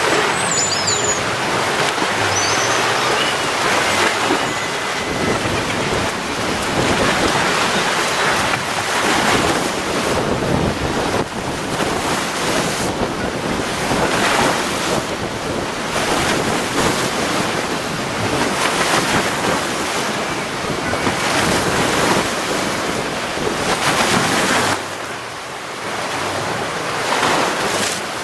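Wind buffeting the microphone over the wash of waves, rising and falling in gusts, with a brief lull near the end.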